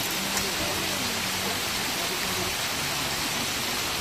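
Small fish frying in hot oil in a wok, a steady sizzling hiss, with a single light click about half a second in.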